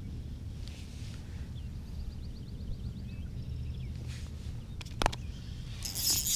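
Outdoor pond ambience with a steady low rumble. About two seconds in comes a short, rapid run of high ticks, about five seconds in a single sharp click, and near the end a brief rush of hissing noise.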